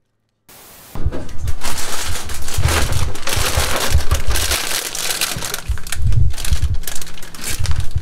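Loud, irregular rustling and crinkling close to the phone's microphone, with uneven low thumps, starting about a second in.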